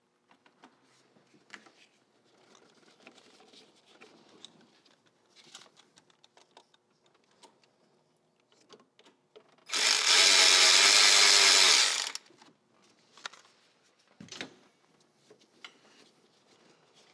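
A handheld cordless power tool runs in one steady burst of about two and a half seconds, about ten seconds in, loosening a heater-hose clamp. Faint clicks and the handling of tools and parts come before and after it.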